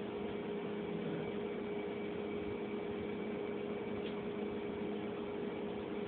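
Steady hum at one pitch over an even hiss, unchanging throughout.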